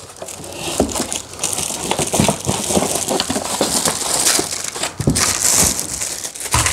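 Cardboard packing rustling and crinkling, with irregular scrapes and knocks, as the parts of a new carpet cleaner are pulled out of the box.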